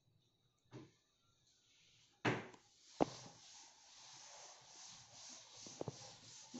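Chalkboard duster wiping chalk off a blackboard: a steady scratchy rubbing that swells and fades with the strokes. It starts about three seconds in, just after a sharp knock and a click.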